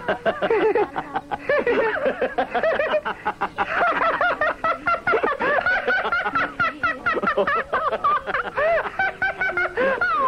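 A man and a robot character laughing heartily together, in fits that run on without a break.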